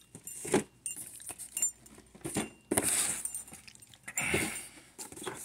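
Cardboard model kit boxes being handled and moved on a tabletop: a few short knocks and rustling as a box is picked up, slid and set down.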